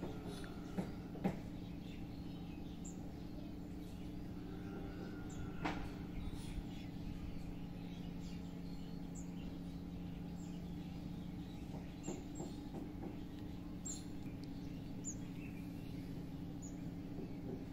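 Outdoor ambience: short high bird chirps every second or two over a steady low hum, with a few light clicks.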